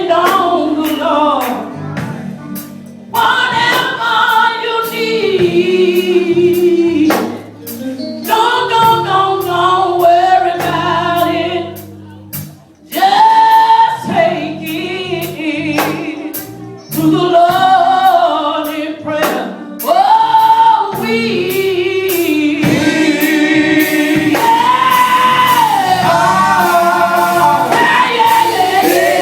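Gospel-style singing with a choir and instrumental accompaniment.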